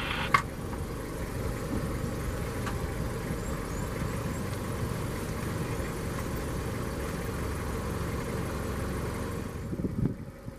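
Safari vehicle's engine idling with a steady low rumble, with one sharp click just after the start.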